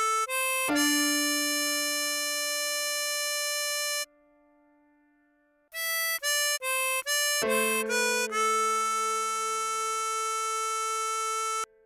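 Tremolo harmonica playing a slow melody: a rising phrase ending in a long held note, a short pause, then a quick run of short notes that settles into another long held note with a wavering tremolo, over a lower sustained accompanying tone.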